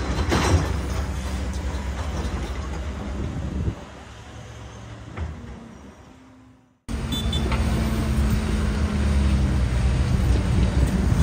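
Diesel engine of a Caterpillar excavator running steadily with a low hum, mixed with road traffic. About a third of the way in the sound drops and fades almost to nothing, then comes back abruptly with the engine running again.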